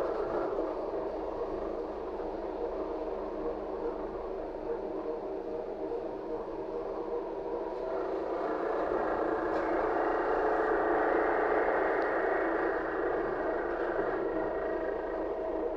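Cabin noise of a LiAZ-5280 trolleybus under way: the steady running noise of tyres, body and electric traction motor, growing louder for a few seconds past the middle.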